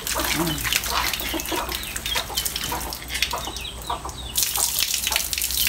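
Water sloshing and splashing in a steel basin as hands rub and rinse fresh egg noodles. About four seconds in, a steady hiss of water running from a hand-pump spout into the basin joins in.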